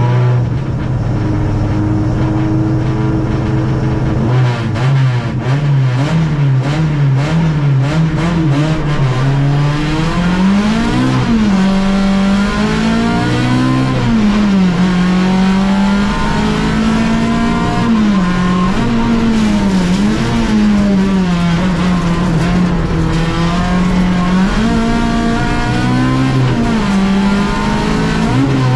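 Fiat Uno slalom car's four-cylinder engine heard from inside the cabin, held at steady revs at first. About four seconds in the car pulls away, and the revs then rise and fall again and again as it accelerates through the run.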